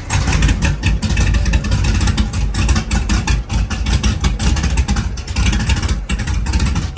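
LS-swapped, cammed Monte Carlo SS V8 running after fresh header gaskets and spark plugs, with a loud, uneven pulsing beat.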